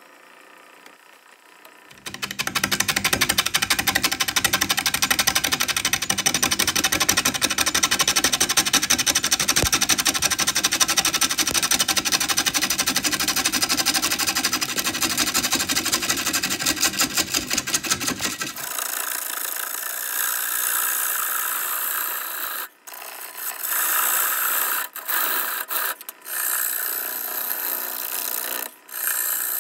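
Power tool cutting maple, a loud cutting noise with a fast, even rhythm that starts about two seconds in. About two-thirds of the way through it changes to a thinner sound that stops and starts several times.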